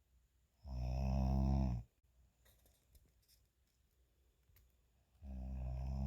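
Two loud snores, each a rattling, buzzing sound lasting about a second, the first starting near the beginning and the second about four and a half seconds later. The snoring is loud enough to be likened to a jet fighter.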